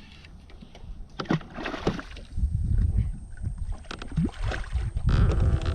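Scattered knocks, clicks and water sounds on a fishing kayak as a hooked fish is brought in, with surges of low wind rumble on the microphone.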